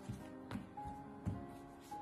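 Quiet background music with soft held notes.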